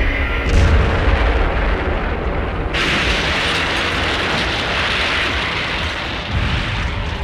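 Film sound effects of a large explosion: a deep rumbling blast, then about three seconds in a second blast cuts in with a loud rushing noise that dies down over the next few seconds.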